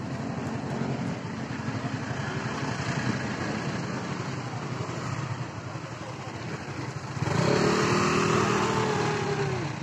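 Motorcycle engine idling steadily, then revving up as it pulls away about seven seconds in, louder from there on.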